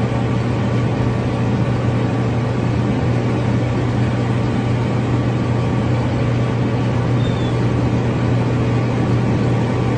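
Steady low hum of a running motor vehicle with road noise, constant and unchanging.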